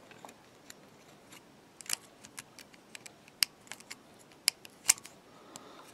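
Scattered small metallic clicks and taps from fingers and a screwdriver working the brush holder and terminal tags of a Lucas ACR alternator as a part is pushed home.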